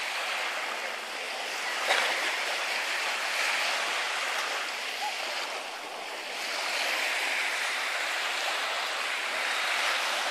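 Small waves washing onto the beach, the surf hiss swelling and easing as each wave comes in and draws back. A brief sharp click about two seconds in.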